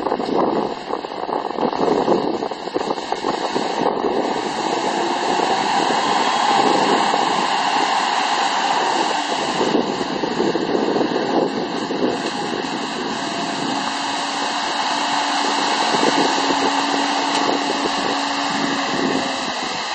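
Spray tanker's pressurised fan sprays and batter spray hissing steadily as they jet water onto gravel, over the running engine of the truck pulling it. A faint steady hum joins in about two-thirds of the way through.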